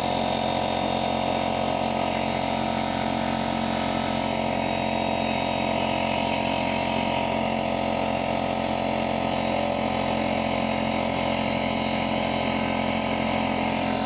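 Steady, even drone of a motor running at constant speed, like a power tool or similar machine, with no change in pitch or level.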